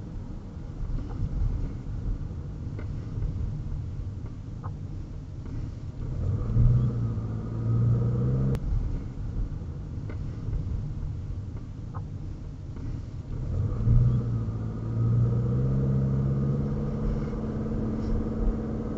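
Car engine and road rumble heard from inside the cabin while driving, the engine note rising twice as the car pulls away, about six and thirteen seconds in, then holding steady.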